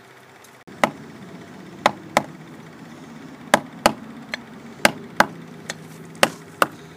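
Mallet striking a caulking iron, driving cotton caulking into the garboard seam of a wooden boat's hull: about ten sharp knocks at an uneven pace, often in quick pairs.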